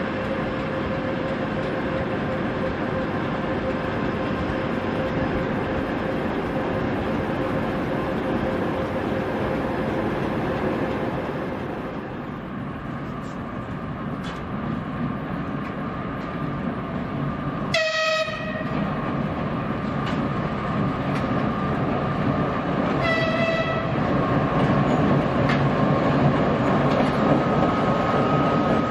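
Twin-section diesel locomotive engines running with a steady whine, then a locomotive's horn blasts twice, a longer blast about two-thirds of the way in and a short one about five seconds later. The diesel engine then grows louder as the locomotive passes close by.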